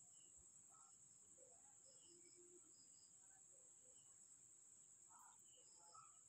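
Near silence with a faint, steady high-pitched trill of crickets.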